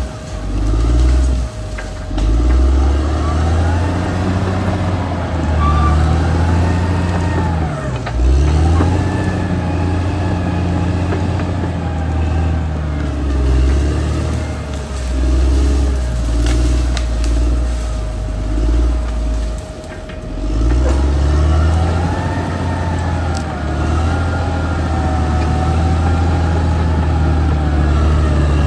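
Caterpillar D6R XL bulldozer's diesel engine working under load, its pitch repeatedly dropping and climbing again as load and throttle change. A steady high whine runs along with it and stops about two-thirds of the way through.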